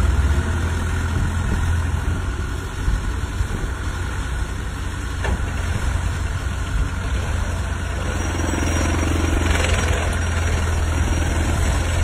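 Gentec GE970 hydraulic plate compactor, hung from a barge crane, vibrating a wooden pile into the bottom: a steady low engine-like hum. A single short tick comes about five seconds in.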